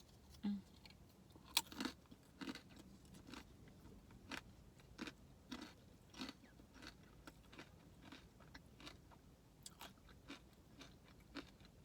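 A person chewing crunchy food close to the microphone: a string of soft crunches, roughly one to two a second.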